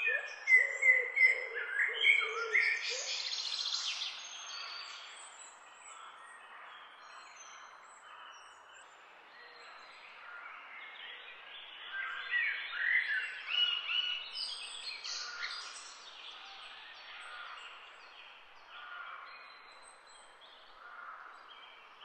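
Several birds calling and singing together: quick chirps and short whistled phrases over a faint background hiss. The calls are busiest in the first four seconds and again from about twelve to fifteen seconds in, with low repeated notes under them at the start.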